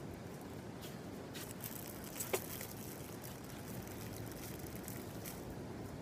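Small plastic bag crinkling in the hand in scattered faint crackles, over steady low background noise, with one brief sharp sound that drops quickly in pitch a little over two seconds in.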